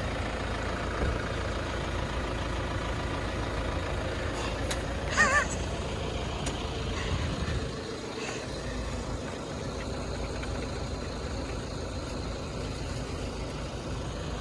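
Street traffic: a steady rumble of vehicle engines running nearby, with a brief wavering tone about five seconds in.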